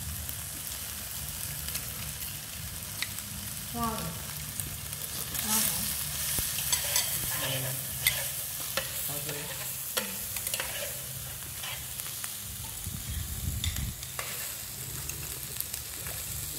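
Meat, seafood and vegetables sizzling steadily on a tabletop grill pan, with scattered sharp clicks and knocks of metal chopsticks against the pan and dishes.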